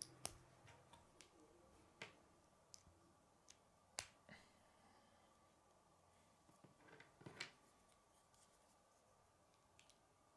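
K'nex plastic connectors and rods clicking as they are snapped together by hand. A few scattered sharp clicks, the loudest about four seconds in, with a small cluster of clicks near seven seconds.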